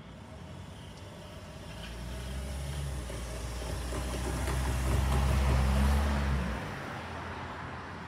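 A vehicle approaches and passes close by: its noise builds from about two seconds in with a low hum underneath, is loudest around five to six seconds, and drops off suddenly just after.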